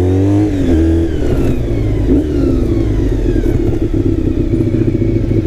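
Honda VFR400's gear-driven-cam V4 engine dropping off from light throttle to a steady idle as the motorcycle rolls to a stop. A faint whine falls slowly in pitch over a few seconds.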